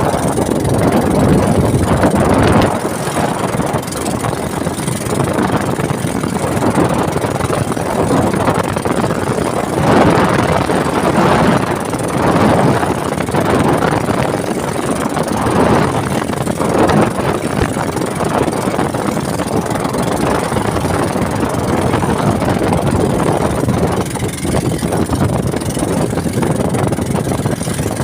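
Ocean waves breaking: a loud, continuous rush of surf that swells and eases every few seconds.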